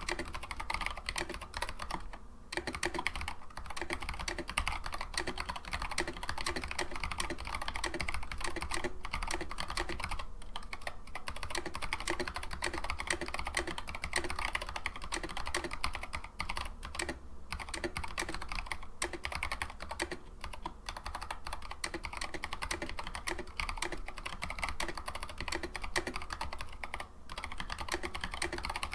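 Continuous typing on a Noppoo Doomhammer Choc 87 mechanical keyboard with Kailh Box Heavy Burnt Orange switches and SA PBT doubleshot keycaps: a steady run of key clicks and clacks with a few brief pauses.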